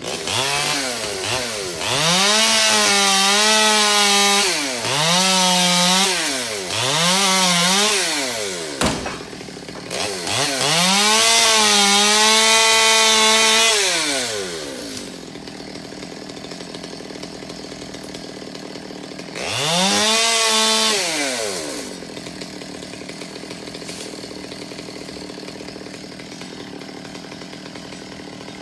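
Two-stroke chainsaw revved to full throttle in bursts of a few seconds, cutting through tree branches, dropping back to idle between cuts. The longest burst lasts about four seconds; after it the saw idles steadily, with one more short rev partway through.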